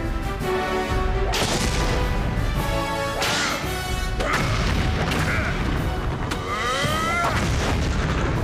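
Dramatic background music with heavy booms and crashes layered over it, three big hits in the first half, then swooping whooshing sound effects near the end.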